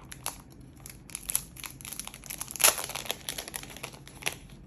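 Packaging crinkling and rustling in the hands as a photo-card packet is opened, a run of irregular crackles with the loudest one about halfway through.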